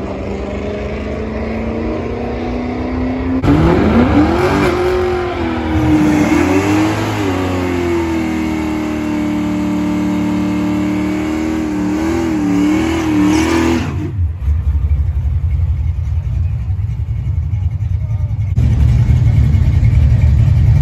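1979 Camaro doing a burnout: the engine revs up and is held high for about ten seconds, its pitch rising and falling, with the rear tyres spinning. The revs then drop suddenly and the engine runs low as the car rolls forward, getting louder near the end.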